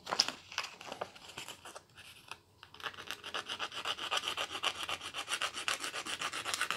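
Hand sanding: a small guitar nut shim rubbed back and forth against a sheet of sandpaper in rapid, even strokes, several a second. The strokes start about three seconds in, after some light handling rustle.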